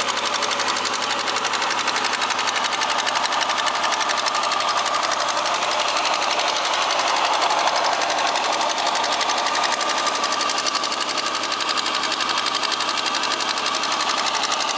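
Opel X30XE 3.0-litre V6 engine running steadily with a fast, even knock ticking along with it: the engine knock the owner is documenting.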